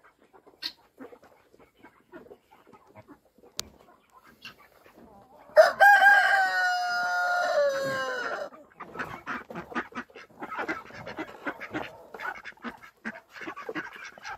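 A rooster crows once, about five and a half seconds in: a long call of about three seconds that drops in pitch at the end. Other fowl keep up short, rapid calls after it.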